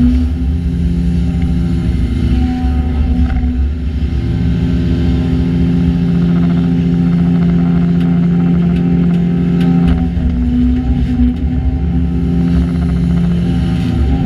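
Diesel engine of a Hyundai Robex LC220-9A excavator running under hydraulic load, its pitch shifting up and down several times as the machine digs and swings. A few faint clicks and knocks come about two-thirds of the way through.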